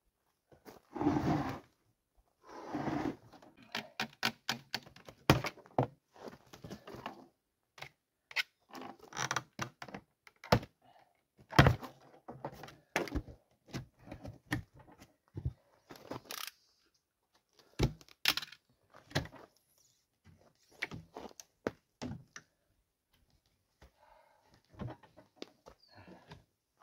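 A wooden shipping crate being unpacked by hand: a utility knife cuts the plastic strapping and cardboard, and the wooden slats are handled and pulled loose, giving a scattered series of knocks, clicks and thunks. Two longer scraping sounds come in the first few seconds.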